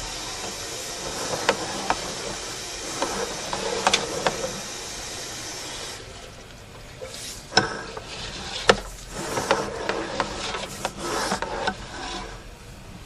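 Sewer inspection camera's push cable scraping and clicking as it is fed through the pipe, over a steady hiss that drops away about six seconds in.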